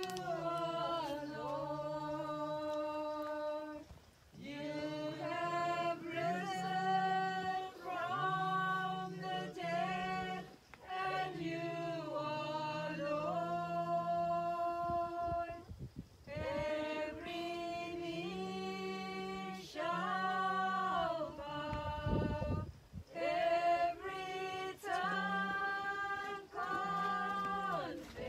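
A small group singing a hymn unaccompanied, women's and men's voices together, in phrases of a few seconds with short breaths between them.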